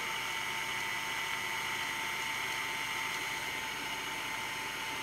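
Braun food processor motor running steadily with an even, unchanging whine as its blade grinds garlic and ginger with oil into paste.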